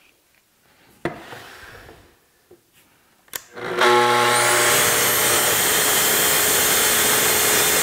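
A plunge-cut track saw starts a little before halfway through, its motor spinning up with a rising whine. It then runs loud and steady as it is pushed along its guide rail, ripping a sheet of plywood to rough size. Before it starts there are only a couple of faint clicks.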